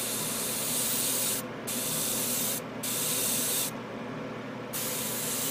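Airbrush spraying thinned paint in four hissing bursts of about a second each, with short pauses between them as the trigger is released, over a steady low hum.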